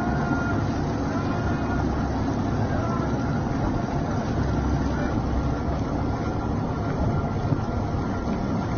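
A boat engine running steadily under a constant rush of noise.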